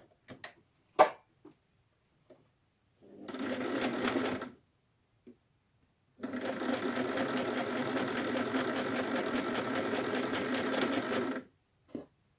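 Electric domestic sewing machine stitching through layered cotton patchwork squares: a short run, a pause, then a longer steady run of about five seconds with a fast, even stitch rhythm. A few clicks come before it, one sharp and loud about a second in.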